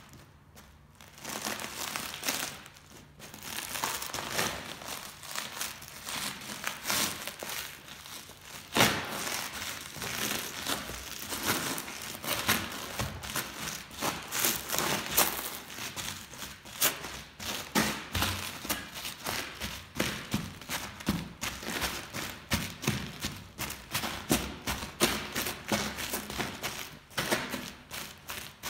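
Leather boots treading on a sourdough loaf lying in a pile of crisps, with dense crunching and crackling and some dull thuds as the crisps and crust break. There is one sharp, loud crack about nine seconds in.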